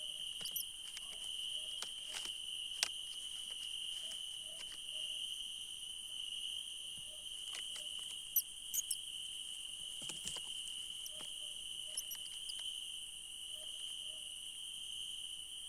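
Crickets chirping in a steady, unbroken high trill, with short, faint low calls repeating every second or two. Scattered sharp clicks and scratches, the loudest a little past the middle.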